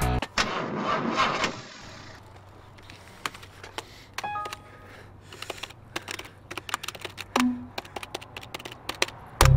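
Computer keyboard typing: irregular sharp key clicks. A short rushing noise comes in the first second or so, and a few brief beeps about four seconds in.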